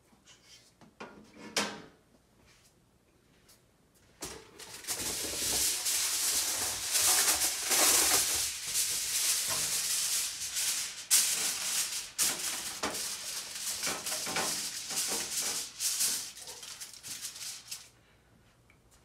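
Aluminium foil crinkling and rustling as it is handled and pressed down over a metal baking sheet, from about four seconds in until near the end. A single knock about a second and a half in.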